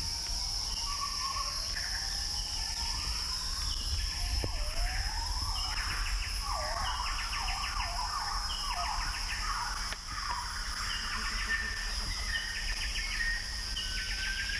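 Tropical forest ambience: a steady high insect drone under a string of repeated animal calls that sweep up and down in pitch, some broken into fast trills.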